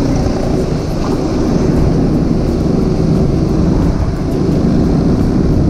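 Motorcycle running steadily on the road, its engine drone mixed with wind noise on the microphone.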